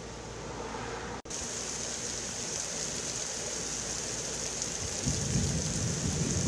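Heavy rain pouring steadily, a dense hiss that starts suddenly just over a second in. A low rumble joins about five seconds in.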